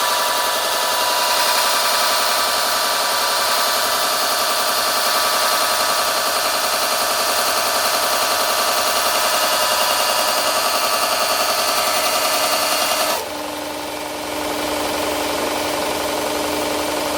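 2x72 belt grinder grinding a steel knife bevel: a loud, dense rasp with a steady whine. About thirteen seconds in the blade comes off the belt, and only the grinder running free with a steady hum is left.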